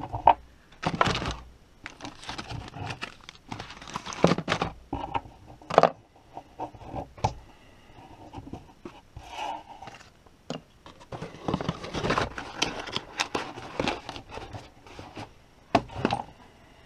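Plastic bags rustling and crinkling, with irregular knocks and clatter as small accessories are packed into a cardboard box and the box is slid across a workbench.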